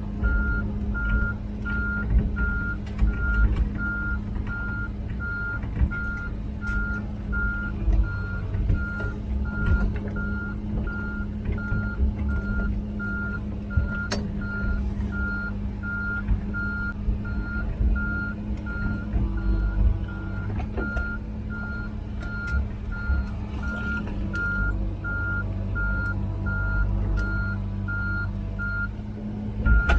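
Komatsu PC16 mini excavator tracking along with its diesel engine running and its travel alarm beeping in an even, rapid beat, with knocks and rattles from the machine. The beeping stops briefly near the end.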